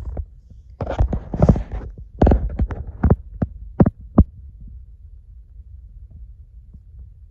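Handling noise: a quick run of knocks and short rustles over the first few seconds as the bags and phone are moved about, then only a low steady rumble.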